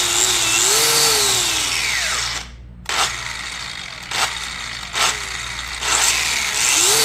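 DeWalt FlexVolt cordless angle grinder running, then winding down and stopping about two and a half seconds in. Three short bursts follow as the motor kicks briefly and dies each time, before it spins up and runs again near the end: a grinder that only starts when its wheel is spun by hand.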